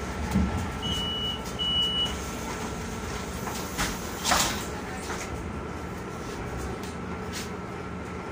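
Solaris Urbino 12 IV city bus standing at a stop with its engine idling in a steady hum. Two short high beeps of the door warning signal sound about a second in, and a sharp hiss of compressed air from the pneumatic door gear follows about four seconds in.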